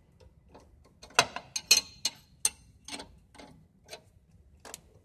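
Ratchet wrench clicking in uneven strokes while winding a coil spring compressor's threaded rods to loosen it on a car's coil spring. The clicks come thickest and loudest from about a second to two and a half seconds in.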